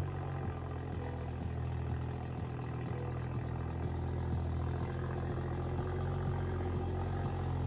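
BMW M240i's turbocharged straight-six engine running steadily with an even low drone.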